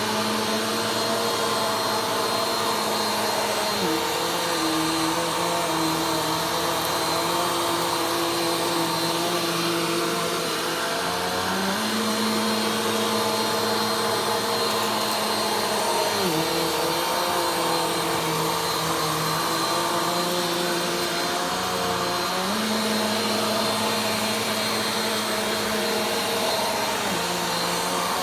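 Vacuum cleaner running steadily during slow vacuuming. Its motor hum shifts down and back up in pitch every several seconds as the load on it changes.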